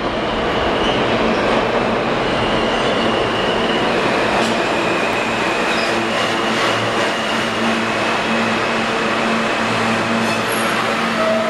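R160B subway train pulling into an underground station and slowing. The loud, steady rumble of steel wheels on rail carries a faint high wheel squeal and a steady low hum.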